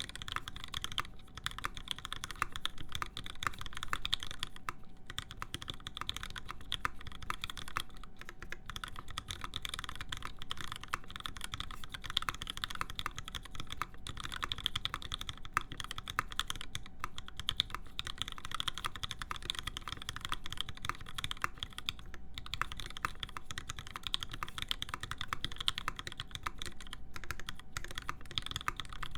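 Continuous typing on an LZ CLS custom mechanical keyboard with lubed Alpaca linear switches, blank PBT keycaps and a full aluminium plate: a dense stream of key clacks, broken by a few brief pauses.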